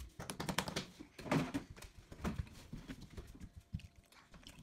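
Metal spoon stirring thick cake batter in a glass bowl: a run of irregular clinks and scrapes against the glass, with one louder knock about a second in.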